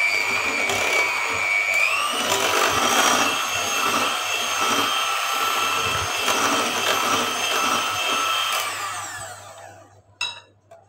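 Electric hand mixer running as it beats cake batter, a steady motor whine that rises in pitch about two seconds in. Near the end it is switched off and winds down, followed by a short clack.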